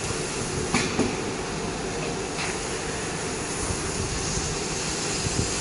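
Steady hiss and hum of a CO2 laser die-board cutting machine running as it cuts, with a few faint clicks in the first few seconds.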